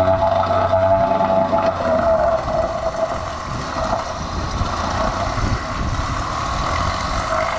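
Mercury 3.3 hp single-cylinder two-stroke outboard running in gear in a test tank, its propeller churning the water. The engine note holds fairly steady, wavering slightly in pitch.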